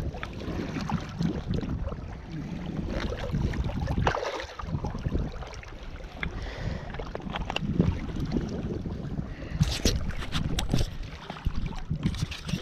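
Wind rumbling on the microphone over small waves lapping at the shore. From about ten seconds in there is a quick run of sharp splashes and clicks as a blue catfish is pulled into the rocky shallows and grabbed by hand.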